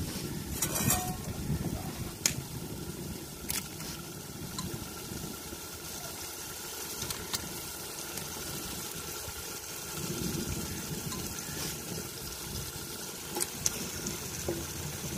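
Wet tomato masala cooking over a wood fire in a large aluminium pot as raw chicken pieces are dropped in, a low steady bubbling noise with a few sharp clicks scattered through it.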